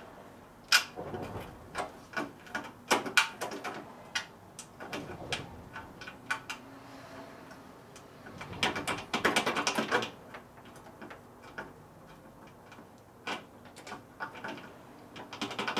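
Hand tools clicking and clinking on metal as a motorcycle gas tank mounting bolt is worked in, with a quick run of clicks about nine seconds in. The bolt keeps binding on old dried crud in the tank's threads.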